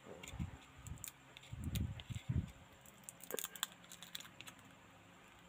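Faint, scattered small clicks and taps of an OPPO F5 smartphone's frame and internal parts being handled by hand, with a few soft low handling sounds in the first half.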